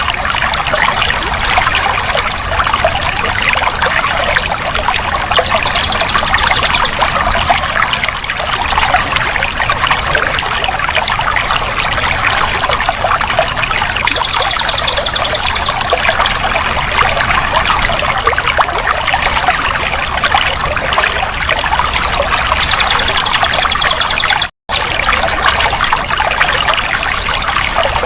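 Running water trickling and pouring steadily. A short, high, rapid trill recurs about every eight to nine seconds, and the sound cuts out completely for an instant about three-quarters of the way through.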